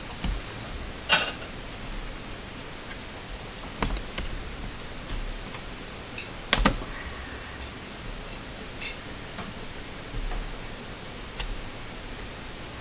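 Scattered sharp clicks and taps of small laptop parts and tools being handled in a teardown, over a steady hiss. The loudest click comes about a second in, and a quick double click comes a little past the middle. A faint high whine runs through most of it.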